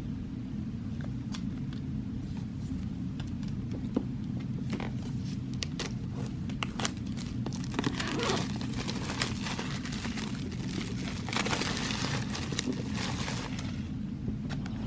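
Packaging being handled and opened: crinkling and tearing, with scattered clicks and taps, densest about halfway through and again near the end, over a steady low hum.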